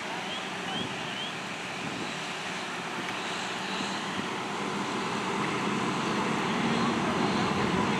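Steady engine-like rumble with a low hum over outdoor noise, slowly growing louder; three short, high rising chirps near the start.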